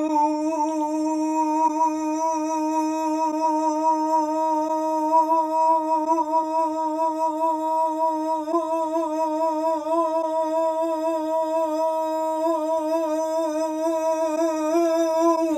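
A man's drawn-out cry of "nooo" in dismay, held on one long wavering note, dropping in pitch as it finally ends.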